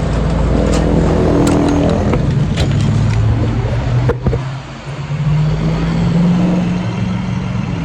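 Car engine running close by, its pitch shifting as it pulls, easing off briefly about four seconds in and then picking up again.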